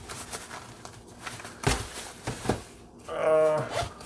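Rustling and a couple of short knocks as a soft fabric case is handled, then a man's short, level hummed "hmm" near the end.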